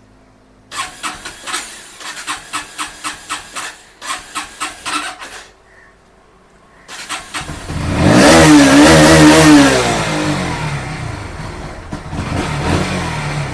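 Bajaj Pulsar NS160 BS6 single-cylinder fuel-injected engine cranking on the electric starter for about five seconds without firing. After a short pause it is cranked again and catches about seven seconds in. It is revved up and down with the throttle, then settles to a lower, uneven running. This is the hard-starting fault the bike came in with, which the mechanic goes on to trace to the fuel injection.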